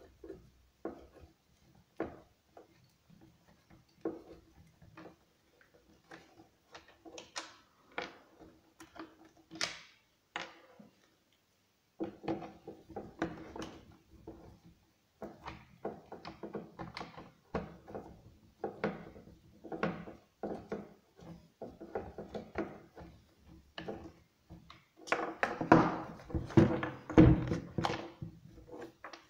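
Irregular short clicks and knocks from a chainsaw being handled on a wooden bench while its recoil starter cord is worked, with the engine not running. The knocks grow louder and closer together near the end.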